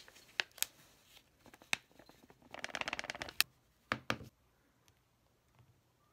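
Plastic bag of powder hair lightener crinkling as the powder is shaken out into a plastic tint bowl. A dense crackle of about a second comes in the middle, with a few sharp taps and clicks before and after it.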